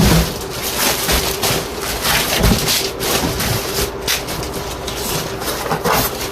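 Packaging being handled and rummaged through: irregular rustling, rubbing and scraping with a few light knocks, over a faint steady hum.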